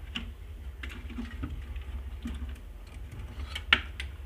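Light clicks and taps of a hand handling a plastic electrical switchboard, with one sharper, louder click about three and a half seconds in, over a steady low hum.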